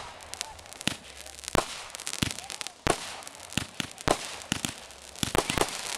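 Aerial fireworks bursting: a string of sharp pops and bangs at irregular intervals, coming faster near the end.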